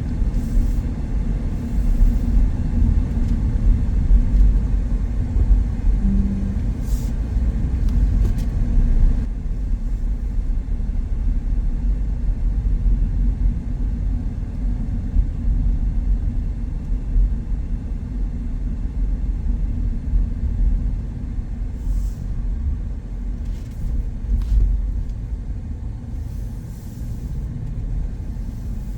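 Car on the move: a steady, loud low rumble of engine and road noise, with a few faint light clicks.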